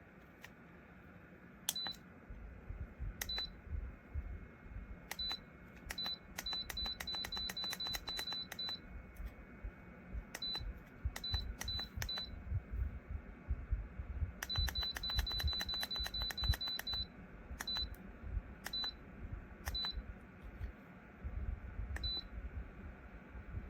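Short, high electronic beeps from a Lasko Ellipse ceramic tower heater's digital control panel, one beep per button press. They come singly a second or so apart, and twice in a quick run of about four or five a second as a button is pressed repeatedly, over a low rumble.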